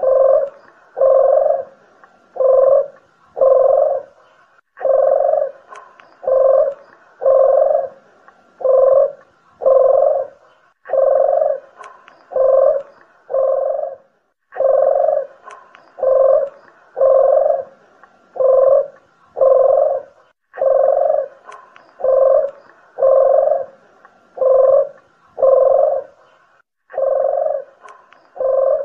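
Collared doves (puter geni and deruk jawa) cooing: a steady run of low, rough coos about two-thirds of a second apart, grouped in phrases of several notes with short pauses between them.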